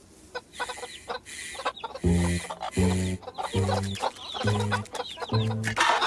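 A flock of cartoon hens clucking, many short overlapping clucks. From about two seconds in, a low note sounds five times, evenly spaced.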